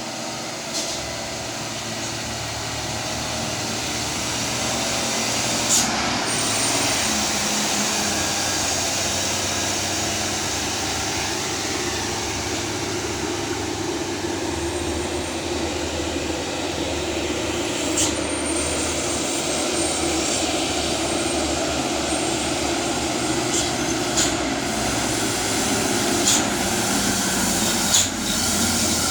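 Diesel engine of a heavily loaded dump truck running steadily on a downhill grade, with a loud rushing roar and a few brief sharp clicks scattered through.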